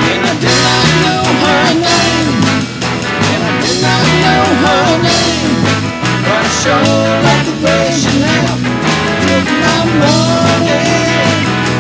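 Rock and roll band instrumental break: a harmonica plays a lead line with bending notes over strummed acoustic guitar, electric guitar, bass and drums keeping a steady beat.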